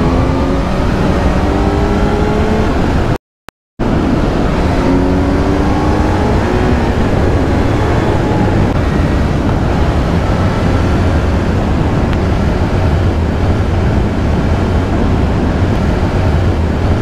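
Kawasaki Z900's inline-four engine pulling up through the revs twice in the first few seconds, with a short drop-out of all sound about three seconds in, then cruising with a steady drone under heavy wind rush on the microphone.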